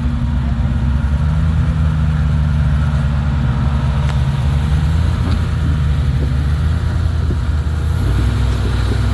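Off-road 4x4's engine running at low, steady revs while it crawls along the trail. The pitch steps up slightly about a second in and drops back near the end.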